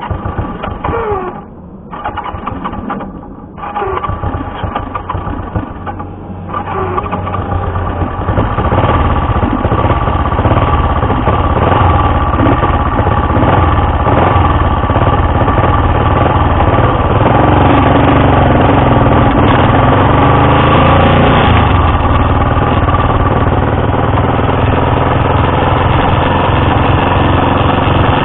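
Honda Dream CL250 motorcycle engine starting: it runs in fits with several dropouts over the first few seconds, then settles into a steady run. The revs rise and fall a few times about two-thirds of the way through.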